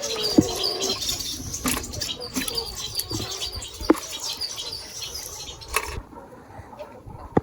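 Small birds chirping busily in many short high notes, with a few sharp knocks or clicks among them. The chirping stops abruptly about six seconds in.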